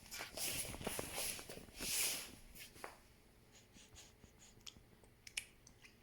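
A baby's breathing and mouth sounds while tasting lemon: three short hissy puffs in the first two seconds or so, then a few faint wet smacking clicks.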